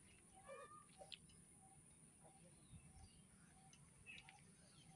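Near silence outdoors, with faint short bird chirps repeating now and then.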